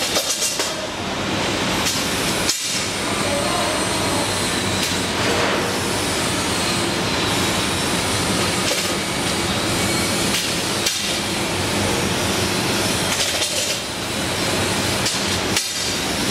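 Packaging machinery running with a steady, dense mechanical clatter, broken by a few very short gaps.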